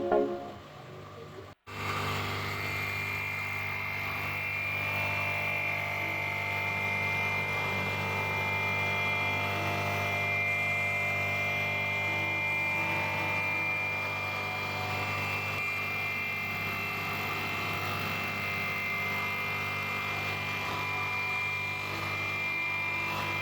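Steady machine hum: a low drone with a thin high whine above it, starting abruptly about a second and a half in.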